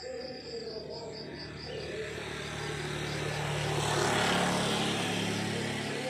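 A motor vehicle passes on the road, its engine and tyre noise swelling to a peak about four seconds in and then fading. Behind it crickets chirp in a steady pulse of about four chirps a second, heard plainly in the first couple of seconds.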